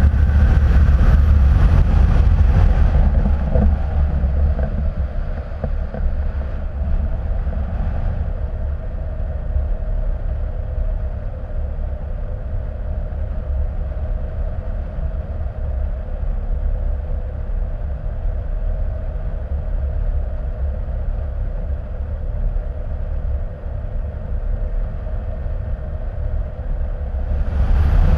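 Wind rushing over the microphone of a camera on a hang glider's wing in flight: a steady deep rumble with a hiss above it, a little louder and brighter in the first few seconds and again at the very end.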